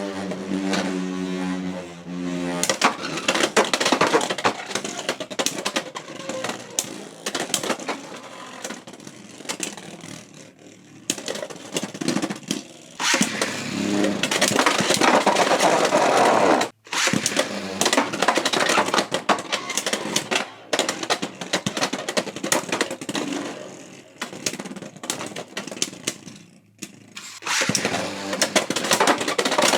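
Beyblade X spinning tops clashing and grinding against each other in a plastic stadium, with rapid clicking impacts and scraping. There is a steady pitched hum in the first couple of seconds, and the sound breaks off sharply about halfway through before the clashing resumes.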